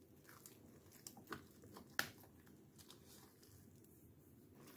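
Faint soft ticks and squishing of a metal spoon stirring a thick, creamy mixture in a container, with one sharper click about two seconds in.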